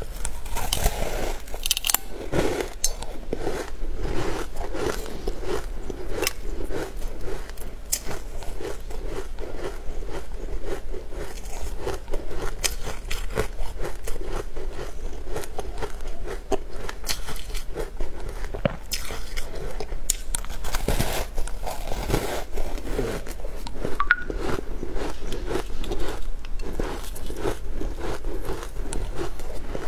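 Close-miked biting and chewing of a soft, green powder-coated dessert: continuous wet chewing with many small clicks and smacks.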